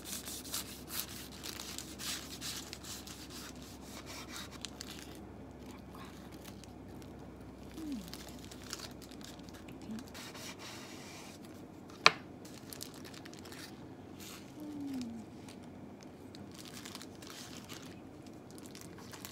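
A knife cutting through a paper-wrapped tortilla wrap on a wooden cutting board, then the wrapping paper crinkling and rustling as the halves are handled. One sharp click about twelve seconds in.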